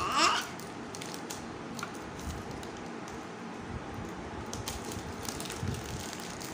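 A brief child's vocal sound at the start, then faint rustling and light clicks as a small carton juice box is handled, over a steady low background hiss.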